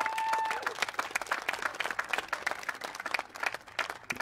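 Crowd of spectators applauding: a dense patter of hand claps that thins out and fades near the end.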